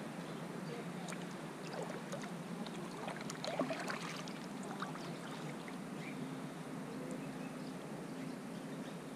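Kayak on the river: small water splashes and drips from the paddle and water lapping at the hull, with a few light knocks, the loudest about three and a half seconds in, over a steady low hum.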